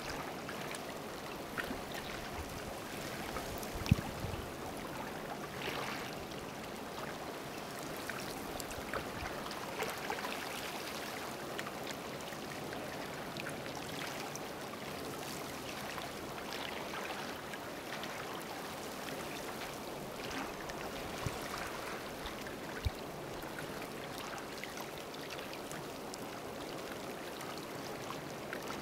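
Seawater washing and trickling around a rock pool on a rocky shore, a steady wash with scattered small ticks. A few sharp knocks stand out, the loudest about four seconds in.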